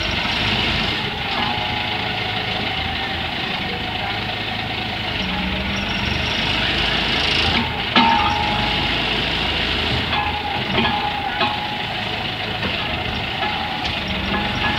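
Truck-mounted guardrail drilling machine running steadily, engine noise with a sharp metallic knock about eight seconds in and a few lighter knocks later.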